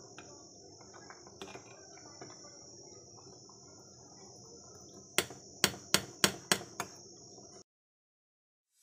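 Rice boiling in an aluminium pot, a low bubbling with a faint steady high whine behind it. Near the end a steel spoon strikes the pot rim six times in quick succession, sharp metallic taps.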